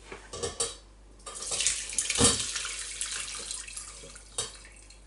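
Sauerbraten braising sauce with chunks of vegetables being poured from a pot through a metal mesh sieve into another pot: a couple of short knocks at first, then a splashing pour, loudest about two seconds in, that tapers off.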